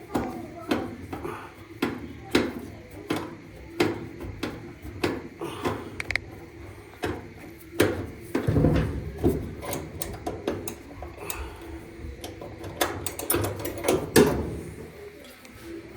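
Tool and metal parts knocking and clicking in an irregular series, roughly one or two sharp knocks a second, with a short low rumble a little past the middle, as the dryer's worn idler pulley is worked off its mount.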